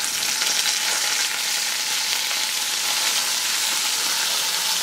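Sausage links frying in a nonstick pan: a steady, even sizzle of hot fat.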